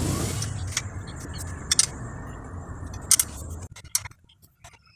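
Small metal motorcycle parts and tools clinking as the rear brake is being reconnected, with several separate sharp clinks. A steady low hum runs underneath and cuts off nearly four seconds in.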